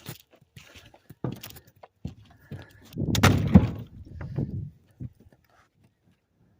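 Oak limbs and firewood being handled: scattered knocks and thuds, with a heavier, longer clatter about three seconds in. The sound cuts off to dead silence about five and a half seconds in.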